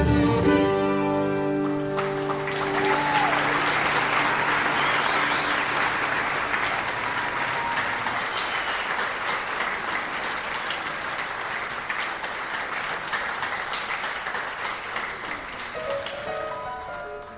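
A bluegrass string band's last chords ring out and stop about two seconds in, then a theater audience applauds and cheers, the applause slowly dying away. Music starts again near the end.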